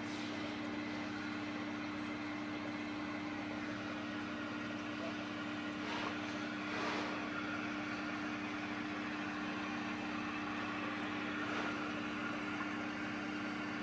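Steady hum of aquarium equipment running, a fixed low tone over an even hiss.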